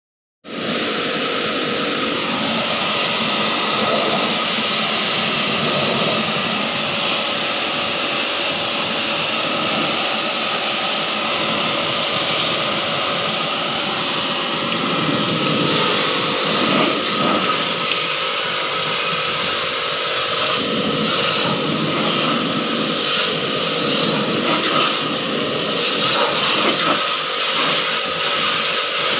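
Pressure washer running steadily, its jet of water hissing against the condenser coil of an air conditioner's outdoor unit, with a steady machine hum underneath.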